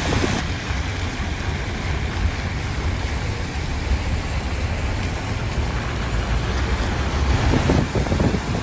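Steady road noise of a car driving on a wet road: tyre hiss over a low rumble, with some wind buffeting near the end.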